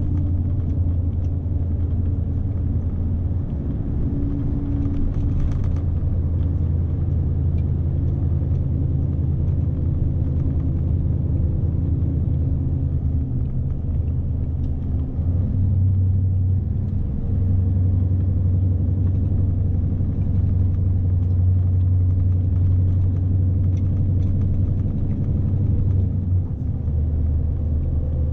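Scania S520's V8 diesel heard from inside the cab, pulling about 44 tonnes, as a steady low drone with road rumble. The engine note rises about halfway through and drops back shortly before the end.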